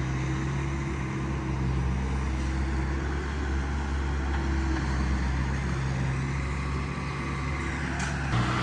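Motor vehicle running steadily: a continuous low droning hum with road noise.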